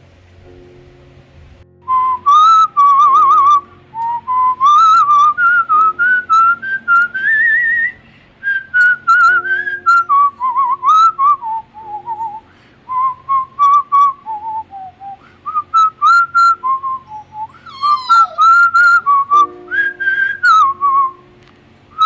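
A person whistling a tune, starting about two seconds in, in short melodic phrases with warbling trills and brief pauses between them.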